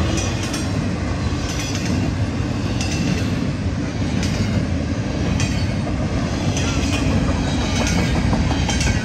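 Freight cars of a Norfolk Southern train rolling past a road crossing at speed: a steady low rumble with regular clicks about every second and a quarter as the wheels cross rail joints.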